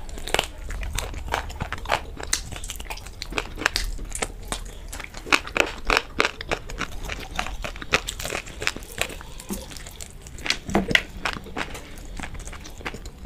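Close-miked eating of fried chicken lollipop: biting and chewing with wet mouth clicks, lip smacks and sucking at the meat on the bone. There are louder bursts of bites about halfway through and again about two thirds of the way in.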